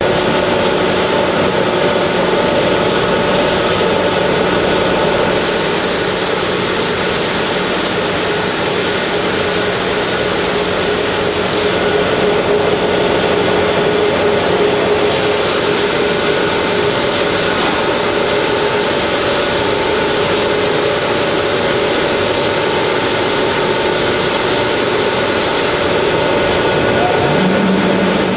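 Steady machinery drone of pumps and motors running in a wood-treatment plant's equipment room, a continuous noise with several steady hum tones held at an even level.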